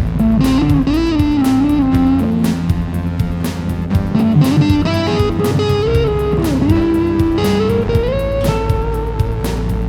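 Band music: an electric guitar plays a melodic lead line with bent, sliding notes over bass and drums.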